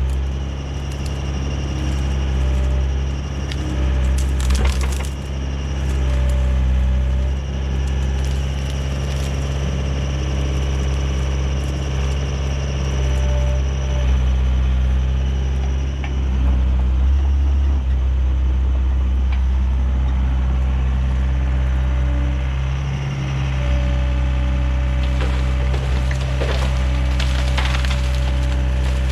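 Excavator's diesel engine running steadily under load while brush branches crack and splinter as the machine pushes and piles them onto the fire. The cracking comes in clusters, once about four seconds in and again near the end.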